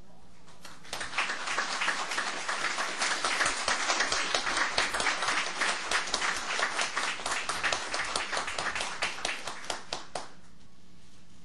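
A small group of people applauding. The clapping starts about a second in and dies away near the end.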